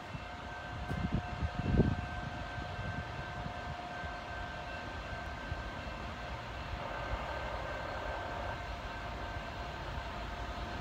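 Distant BNSF freight train approaching: a faint, steady rumble and hum. Low gusts of wind buffet the microphone about one to two seconds in.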